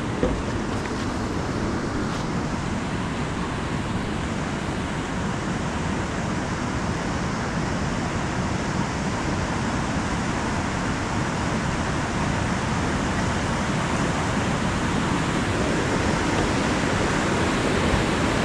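Steady rushing roar of Lava Falls Rapid's whitewater, growing slowly louder as the raft drifts toward it.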